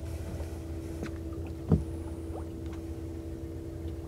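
Boat motor running with a steady hum over a low rumble, and one short knock about two seconds in.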